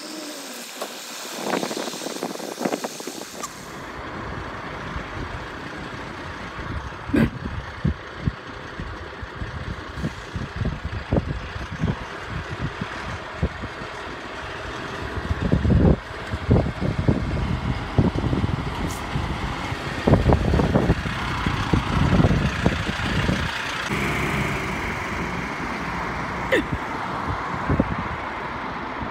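Diesel engine of a MAN fire engine running as it pulls out of the station bay and drives away, with its rumble swelling about three seconds in.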